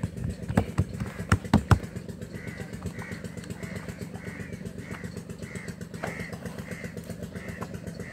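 A few sharp slaps in the first two seconds as roti dough is worked between the hands, then a bird, likely a crow, calling over and over in an even rhythm of just under two calls a second.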